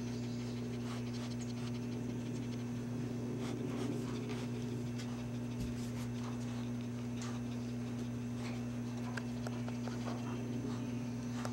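Small Bichon-mix dog panting, with faint scattered clicks and scratches, over a steady low hum.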